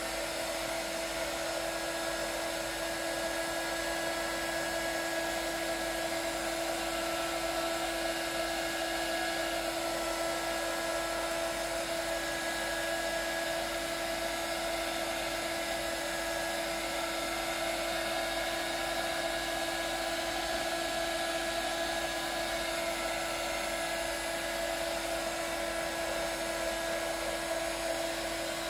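Hot air gun running steadily: a constant motor whine with a hiss of blown air, heating a motorcycle headlight lens to loosen it.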